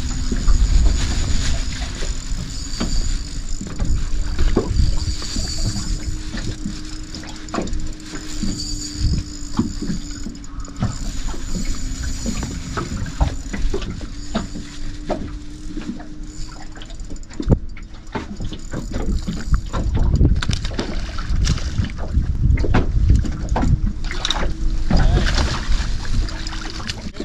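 Water slapping against the hull of a small boat, with irregular knocks and clicks of fishing gear on the boat, over a steady low hum and faint music.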